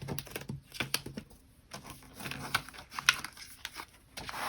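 Paper bills and a cash envelope being handled, making irregular rustling and small clicks.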